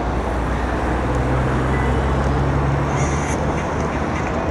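Steady low engine drone over a wash of outdoor noise, with a brief high squeak about three seconds in.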